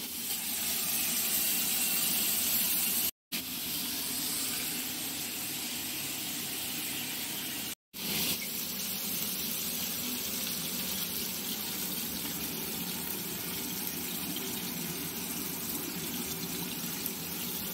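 Mustard oil sizzling in a kadai on the stove: a steady frying hiss, broken twice by brief cuts.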